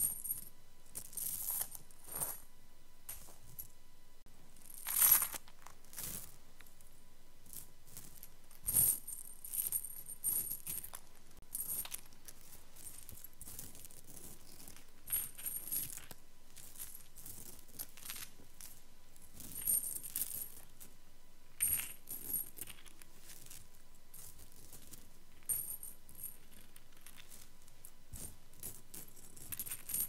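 Small metal chain jingling and clinking in short, irregular bursts, a second or two apart with quiet gaps between; the loudest rattle comes about five seconds in.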